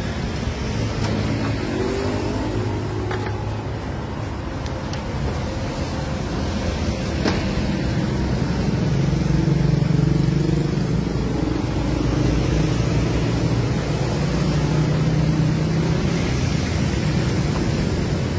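Motor-vehicle engines from street traffic running steadily, their pitch rising and falling as they rev, with a few scattered clicks.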